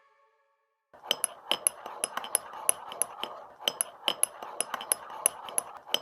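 A utensil clinking repeatedly against a bowl as brownie batter is stirred. Several sharp, ringing clinks a second start about a second in.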